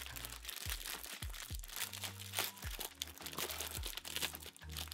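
Thin plastic wrapper of a snack cake crinkling and rustling in the hands as it is unwrapped, with irregular crackles throughout.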